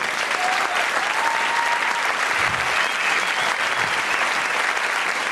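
Theatre audience applauding steadily at the end of a stand-up comedy set.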